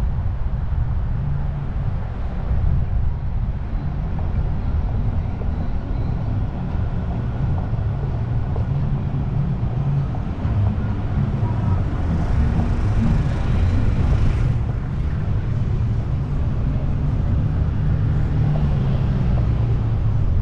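Steady low rumble of wind buffeting the microphone of a camera mounted on the outside of a moving car, mixed with road and engine noise. About twelve seconds in, a brighter hiss rises for a couple of seconds and cuts off suddenly.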